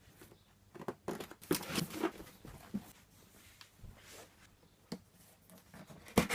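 Cardboard box being opened and its packaging handled: irregular tearing, rustling and scraping of cardboard and packing material, with a sharper knock near the end.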